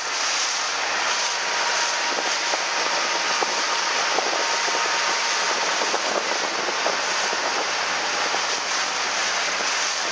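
A motorboat's engine running steadily under a constant rush of wind and water, heard from aboard the moving boat.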